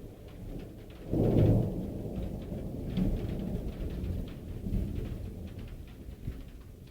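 Thunder: a clap about a second in, followed by rumbling that rolls on and slowly fades, with the patter of rain and drips.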